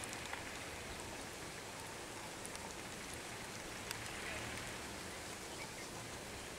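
Steady, faint hiss of outdoor background noise, with a few faint clicks.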